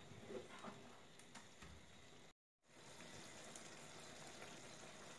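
Faint utensil clicks against a frying pan as chopped callaloo is stirred, then, after a brief dropout, a faint steady hiss of the greens steaming in the pan.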